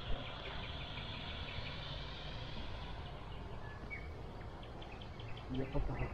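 Low, steady drone of a passing Volgo-Don river cargo ship's diesel engines, with small birds chirping over it and a few louder thumps near the end.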